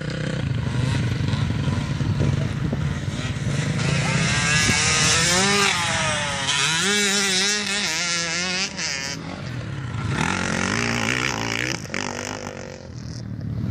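Dirt bike engines on a motocross track, revving with the pitch climbing and dropping again and again as the throttle is worked. The revving is loudest from about four to nine seconds in.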